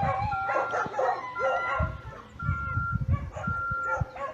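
A pack of canines howling and yipping over a vehicle's reversing alarm, which beeps steadily about once a second, four beeps in all.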